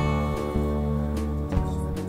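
Background music: an instrumental piece whose notes change every half second or so.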